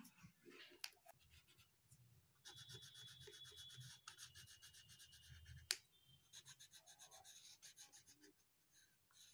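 Crayon rubbing back and forth on drawing paper in quick, even strokes, faint, in two spells, with one sharp tap between them.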